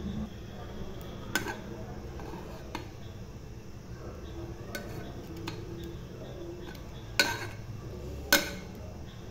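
Metal spoon stirring cooked rice in a steel pot, with scattered clinks and scrapes of metal on metal. The two loudest knocks come near the end, about a second apart.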